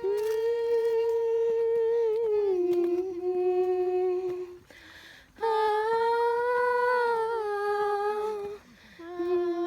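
A woman humming a song's tune in long held notes, three phrases with short breaks between, each dropping to a lower note partway through.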